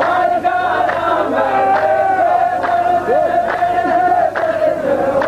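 A row of men chanting a drawn-out verse in unison, with sharp hand claps on a regular beat. This is the chorus line of a qalta, a Saudi sung poetry duel, repeating the poet's verse.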